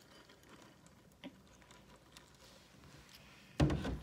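Milk pouring from a plastic gallon jug onto cereal in a bowl, a faint steady splashing. Near the end there is a loud knock.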